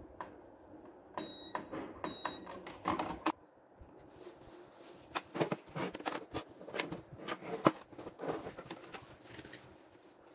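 Scattered clicks, taps and plastic rattles as the switch circuit board and plastic case of a party box speaker are handled, with two short high-pitched electronic beeps about a second and two seconds in.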